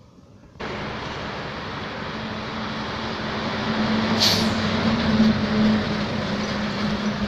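A diesel cargo truck's engine running as the truck drives past close by, a steady engine note over road and tyre noise that grows louder toward the middle. There is a short hiss about four seconds in.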